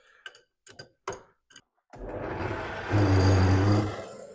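A few light clicks and knocks as the lathe's tailstock and drill chuck are set, then the small metal lathe's motor starts about two seconds in and runs with a steady hum, dying away near the end.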